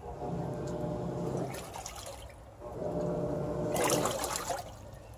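Samsung WA40J3000AW top-load washer agitating a load of water: the drive motor hums through each stroke while the water sloshes, two strokes with a short pause between them, the second ending in a louder splash. It runs without the chattering or grinding noise, the normal sound of agitation after the repair.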